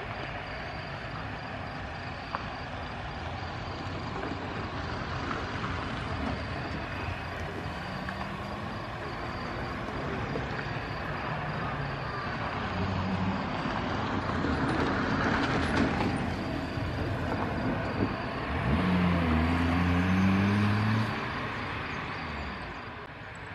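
Steady jet whine and rumble from a Boeing 737-700 on the apron during pushback and engine start. About nineteen seconds in, a ground vehicle's diesel engine revs up, rising in pitch, and this is the loudest part.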